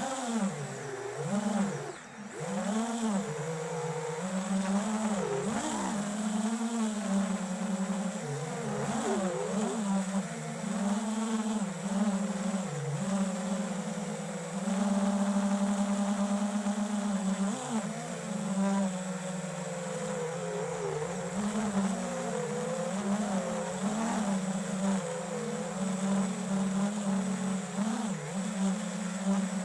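Flywoo FPV quadcopter's electric motors buzzing in flight, the pitch rising and falling constantly with the throttle, held steady for a few seconds about halfway.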